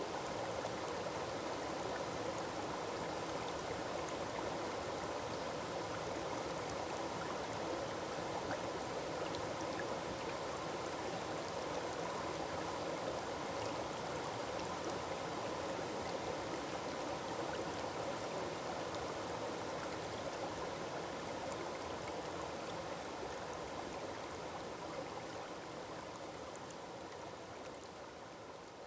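Forest waterfall: water falling and splashing in a steady, even rush, slowly fading out over the last several seconds.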